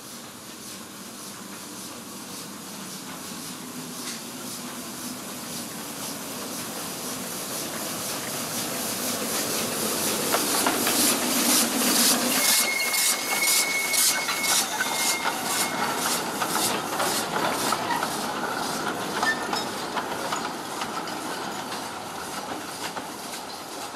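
Narrow-gauge C2-class steam locomotive working past close by, hauling small coaches. Its exhaust chuffs, about three or four a second, grow louder to a peak about halfway through, with a brief thin squeal. The coaches then rattle and clack over the rail joints as the sound slowly falls away.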